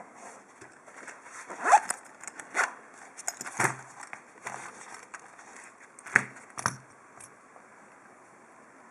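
Small metal clicks and scrapes from an Abus D10 euro profile cylinder lock being handled and worked apart, about six sharp clicks spread over five seconds, then quiet handling.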